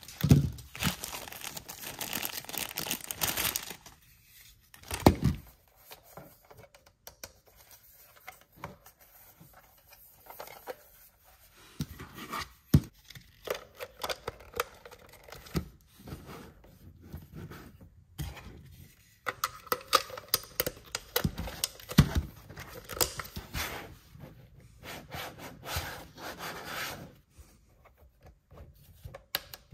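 Plastic packaging bag crinkling for the first few seconds, then hard plastic toy parts clicking, knocking and rubbing as they are handled and fitted together, with a few louder knocks.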